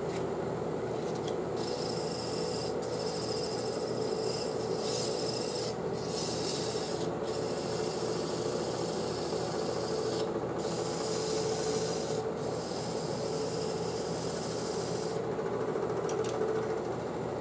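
Fine 320-grit sandpaper hissing against a pine spindle turning slowly on a Jet wood lathe, over the lathe's steady motor hum. The hiss breaks off briefly every second or few as the paper is lifted and moved, then stops a couple of seconds before the end while the lathe keeps running.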